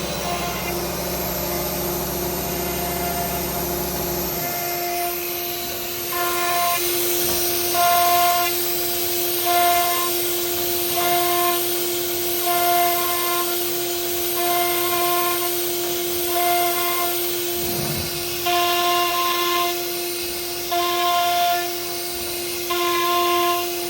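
CNC router carving wood: a steady spindle whine, with a higher whine that comes and goes about every second and a half. A low hum underneath stops about four seconds in.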